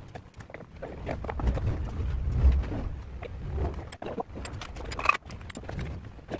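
Clinks and knocks of metal tools and parts being handled while a wheel is fitted to a wooden motorcycle frame, with a sharper metallic clink about five seconds in, over a low rumble.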